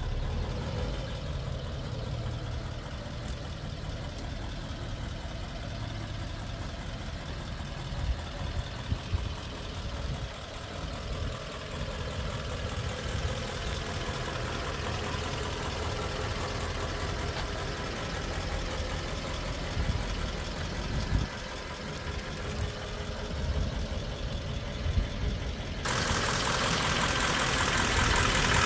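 The 1939 Ford half-ton pickup's engine idling steadily, growing suddenly louder and brighter about three seconds before the end.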